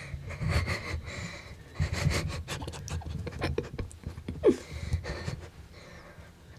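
A hunter breathing hard and fast in short, shaky breaths, typical of buck fever after shooting at a deer, with rustling against the microphone and a sharp squeak about four and a half seconds in.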